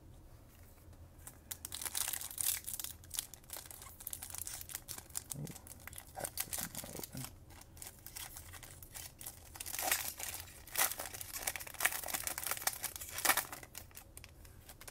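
Foil wrapper of a Topps Chrome baseball card pack crinkling and tearing as it is ripped open by hand, in irregular rustles that come thickest about two seconds in and again over the last few seconds.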